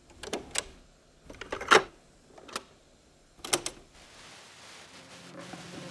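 Mechanical clicks and clunks from a JVC boombox's cassette deck as its piano-key transport buttons are pressed, several sharp clunks with the loudest about two seconds in. From about four seconds in, the tape runs and a faint hiss rises.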